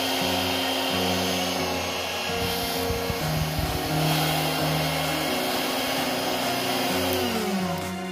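Homemade AC electric motor with a PVC-pipe housing running, its cooling fan giving a steady rush of air, heard under electronic background music. The air noise stops near the end.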